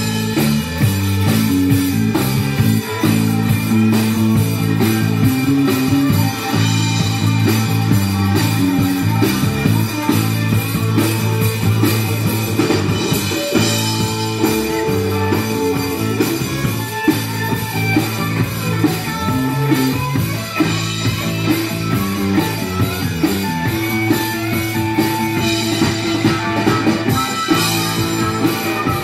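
Rock band playing live: electric guitar over a drum kit with cymbals.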